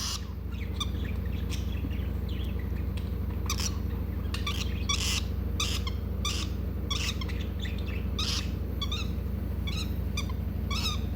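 Pet lovebird chirping, many short, sharp calls at irregular intervals, over a steady low hum.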